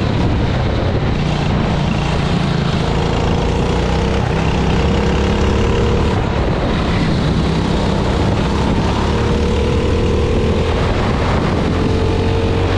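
Go-kart engine heard onboard, running hard through a lap of a wet track, its pitch dipping slightly through a corner and climbing again near the end as the kart speeds up onto the straight.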